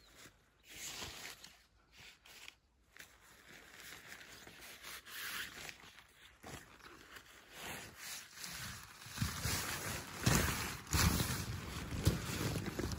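Nylon pop-up tent being handled and sprung open: fabric rustling and rubbing, growing louder, with heavier thuds from about two-thirds of the way in as the open tent is set down.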